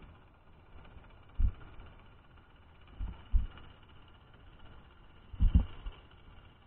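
Dull, low underwater knocks, one, then two, then a double knock, spaced about two seconds apart, over a faint steady hiss. They are picked up through a submerged camera housing resting on the bottom on its rope line, as it knocks and shifts.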